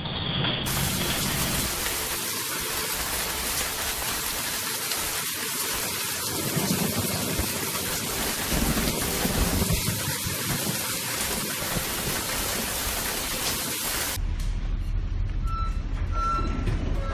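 Storm wind and sea spray lashing a container ship's bridge as the bow ploughs into heavy seas: a steady rushing hiss. About three-quarters of the way through it gives way to a duller low hum, with a couple of short electronic beeps.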